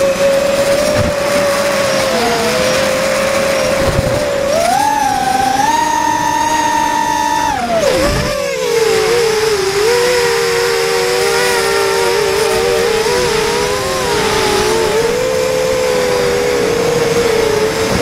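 Quadcopter's Sunnysky 2300kv brushless motors on a 3S battery spinning 5x3x3 three-blade props, making a steady whine. About four to five seconds in the pitch rises with more throttle and holds, then drops sharply around eight seconds as the throttle is cut. After that the motors whine at slightly different pitches that waver against each other, then rise again near the end.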